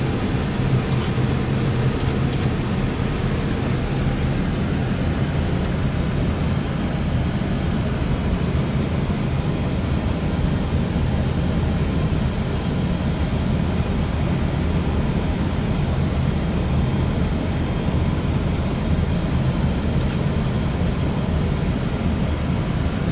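Steady flight-deck noise of an Airbus A320 in flight on approach: a low rumble with a hiss above it, and a few faint ticks.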